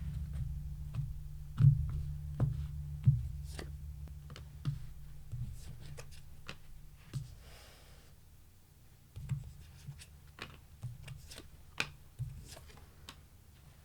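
Tarot cards being shuffled and handled on a table: irregular light clicks, snaps and taps of cards, several to a second at times, with a few louder snaps early on.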